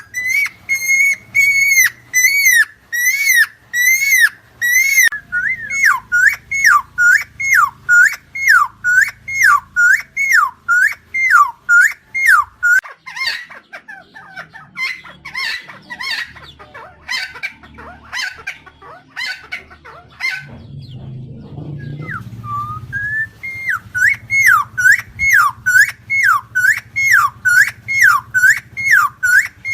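Helmeted friarbird (cucak timor, Philemon buceroides) calling in a long run of loud repeated notes, about two a second, each dipping in pitch and rising back. In the middle the calls turn choppier and harsher, then break off briefly before the regular series resumes.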